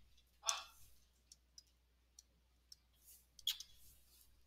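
Faint, scattered clicks from pen input on a computer while a label is written on a slide, with two brief soft noises, one about half a second in and one at about three and a half seconds.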